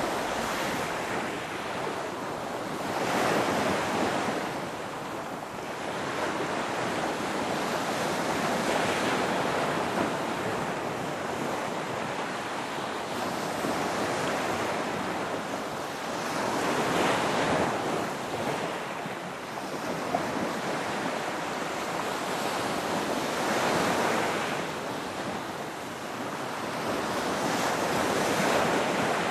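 Ocean surf: waves breaking and washing in, the rushing noise swelling and easing every several seconds.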